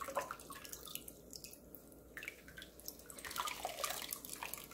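Water dripping and trickling back into a glass bowl as soaked dried pollock shreds are squeezed out by hand, in irregular drops with a heavier run of splashes about three and a half seconds in.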